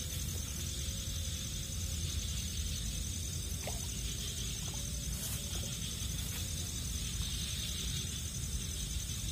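Steady high insect chirring, a fast even pulsing trill, over a low rumble of outdoor background noise, with a few faint clicks.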